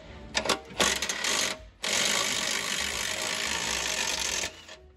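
Cordless power tool running on a front suspension control-arm bolt: two short bursts, then a continuous run of about two and a half seconds that stops shortly before the end.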